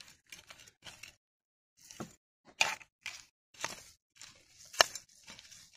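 Small hand trowel digging and scraping into dry, stony soil: a run of separate scrapes and scoops, the sharpest one a little under a second before the end.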